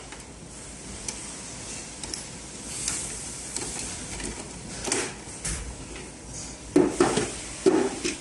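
Parts and tools being handled during a teardown: a few light knocks and clatters midway, then a cluster of sharper knocks near the end.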